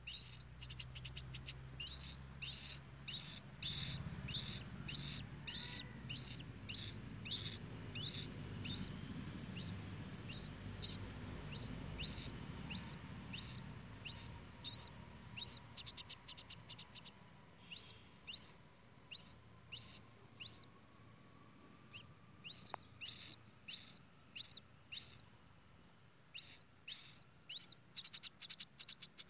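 White-breasted waterhen (ruak-ruak) giving a long series of short, high chirps, each with an upward hook, about one to two a second, in runs broken by brief pauses.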